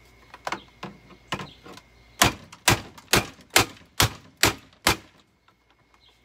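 A run of hard knocks on hard plastic: a few light taps, then about seven sharp blows in quick succession, roughly two a second, as a canister vacuum is beaten to break it apart.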